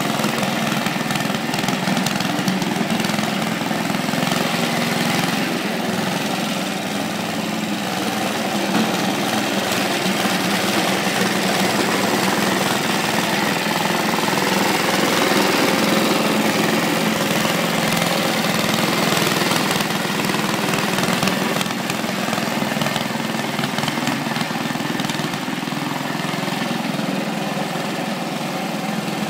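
A Qualcast Commodore cylinder lawn mower's rebuilt Suffolk Foundry four-stroke petrol engine running steadily, with the drive clutch let out so the mower is being driven along.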